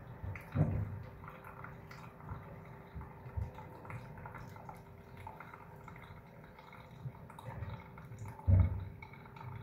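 Hot water from a gooseneck kettle poured in a thin stream onto coffee grounds in a Hario V60 dripper: a soft, steady trickle and drip. A low thump about eight and a half seconds in.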